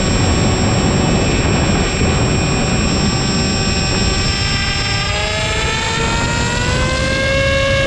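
HobbyZone AeroScout RC plane's brushless electric motor and propeller whining in flight over a heavy rush of wind noise. About five seconds in, the whine climbs in pitch as the motor speeds up, levelling off near the end.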